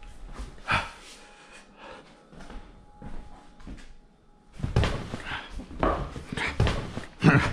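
A knock about a second in, then quiet footsteps and handling noise, and for the last three seconds couch cushions being lifted and shuffled, rustling with dull thuds.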